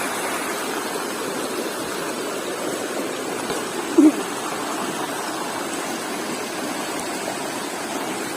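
River water rushing steadily. About four seconds in there is one brief, louder, pitched sound.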